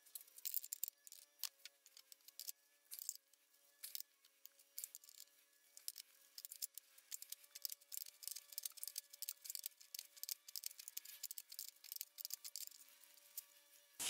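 Faint scattered metal clicks and taps of two adjustable wrenches on the nut of a power steering pulley puller, over a faint steady hum.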